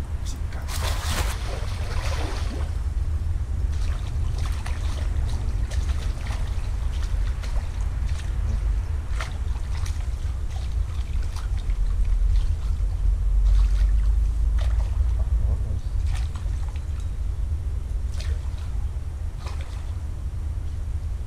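Water sloshing and trickling over a steady low rumble, with a brief louder burst of noise about a second in and scattered small knocks.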